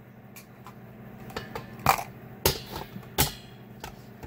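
Cucumber being pushed across a plastic V-blade mandoline set over a stainless steel bowl, giving small clicks and then three sharp knocks about two thirds of a second apart in the second half.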